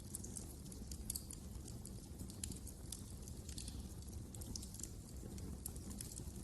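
Fireplace fire crackling, with many small irregular pops and snaps over a low rumble of the flames.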